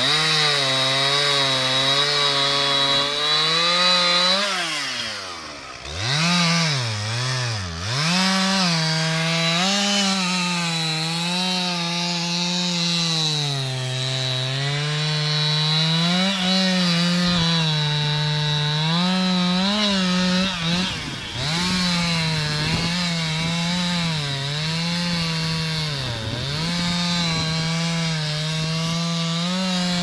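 Two-stroke chainsaw running at full throttle and cutting into a tree trunk, its pitch sagging and recovering as the chain bites. The throttle is eased off toward idle a few times around five to eight seconds in, and briefly again around twenty-one seconds.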